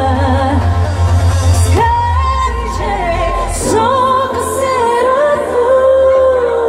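Live pop song: a woman singing long held notes over a backing track with a heavy bass beat, played through stage loudspeakers.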